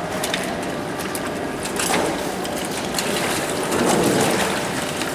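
Shrimp processing machinery running with a steady mechanical clatter of many small clicks. It swells louder about two seconds in and again about four seconds in.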